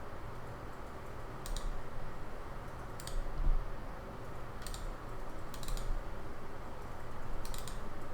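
Computer keyboard keys tapped in short bursts of a few quick clicks, roughly every one to two seconds, over a steady background hiss and low hum.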